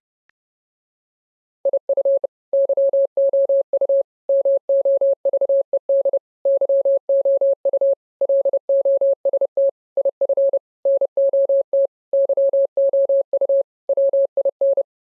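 Morse code beeps: one steady mid-pitched tone keyed on and off in short and long beeps, grouped with gaps between letters. It starts nearly two seconds in and stops just before the end.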